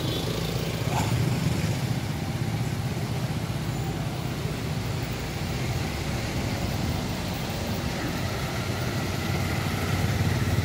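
A line of cars passing one after another, their engines and tyres making a steady traffic rumble.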